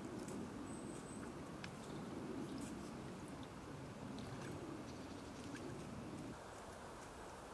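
Faint water sloshing and small clicks from mute swans dabbling as they feed with their heads underwater; the low water sound drops a little about six seconds in.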